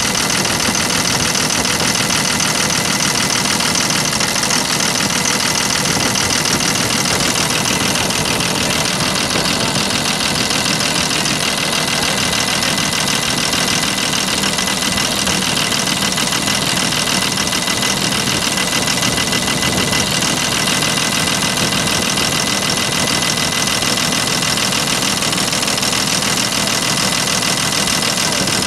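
Six-cylinder diesel engine idling steadily with its valve cover off, so the rocker gear and electronic injectors are open to the air, during an injector test.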